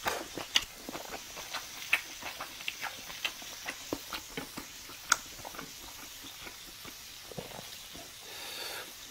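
Close-miked chewing and mouth sounds: irregular wet clicks and smacks, thinning out after about five seconds.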